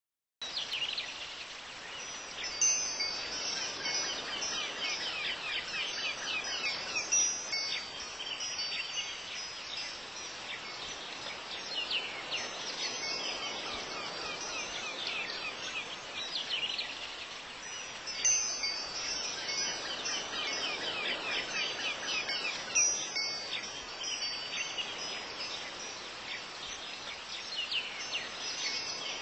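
Wind chimes ringing over a bed of high, fast chirping, an outdoor nature ambience starting about half a second in; the same passage comes round again after about sixteen seconds, as in a loop.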